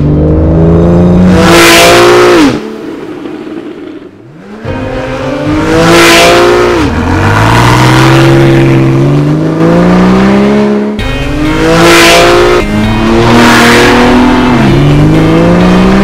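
Porsche 911 (991) flat-six through an Xcentric valvetronic aftermarket exhaust under hard acceleration: the engine note climbs steadily and drops sharply at each quick PDK upshift, several times over. About three seconds in it falls quieter, with a brief falling then rising note, before the full-throttle pulls resume.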